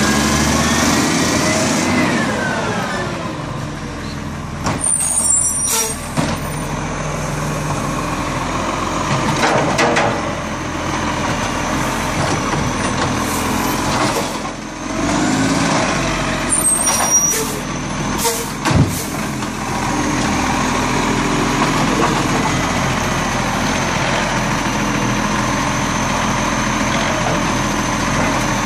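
Side-loading garbage truck running with its engine pitch rising and falling as it pulls up and works its automated bin arm. The air brakes hiss twice, and there are a few knocks and clanks as the arm handles a wheelie bin.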